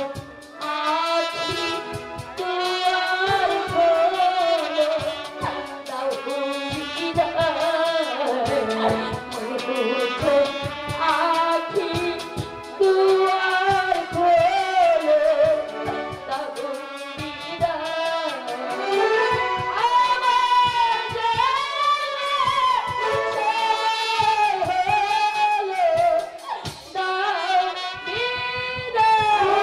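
A woman singing a song into a microphone over live band accompaniment with drum beats, amplified through the stage sound system.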